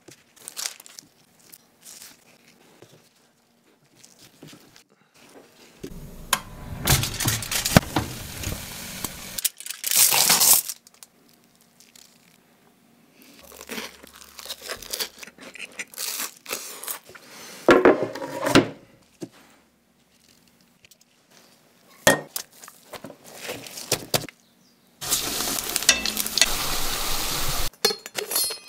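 Close-miked food sounds in short, separate bursts with near-quiet gaps: crinkling and tearing, crunchy bites, and a steady sizzle of frying near the end.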